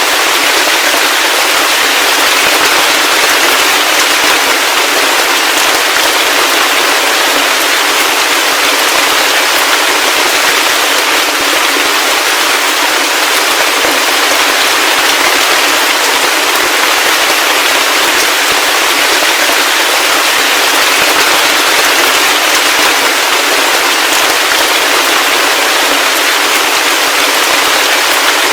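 Heavy rain falling steadily: a dense, even hiss made of countless tiny drop impacts, with no thunder or change in intensity.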